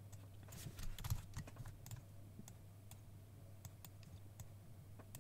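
Faint, scattered clicks of a computer mouse and keyboard over a low steady hum.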